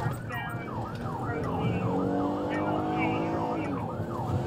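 Police car siren on a fast yelp, its pitch sweeping down about four times a second, heard from inside the pursuing patrol car's cabin.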